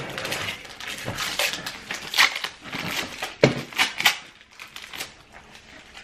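Clear plastic packaging crinkling and rustling as parts of a new cordless stick vacuum are unwrapped, with several sharp crackles about two to four seconds in.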